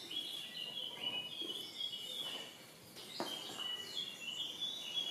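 A songbird singing two short phrases of quick, high chirping notes, with a couple of light knocks in between.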